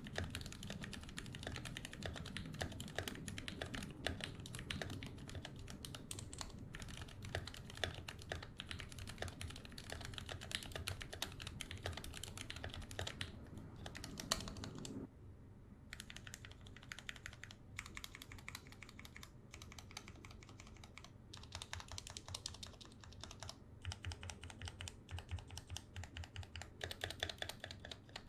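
Typing on a Gamakay K61 mechanical keyboard with lubed Gateron Black linear switches and PBT keycaps: a fast, irregular run of key clacks, with a couple of short pauses about halfway.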